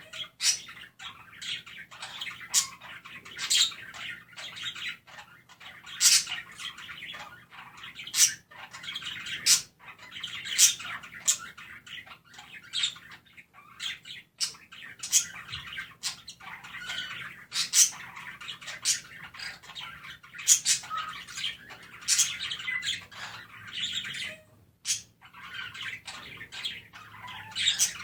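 Pet budgerigars chirping and warbling loudly in a steady chatter, broken by frequent sharp, high squawks and chirps. There is a brief lull about three-quarters of the way through.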